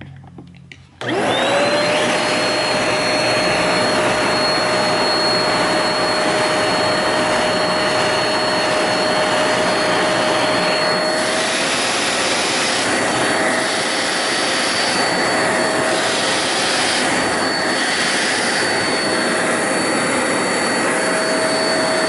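Hoover Spotless portable carpet cleaner switching on with a brief rising whine, then running steadily with a motor whine over a loud suction hiss. From about halfway, the hiss swells and fades with each back-and-forth pass of the nozzle over the wet carpet.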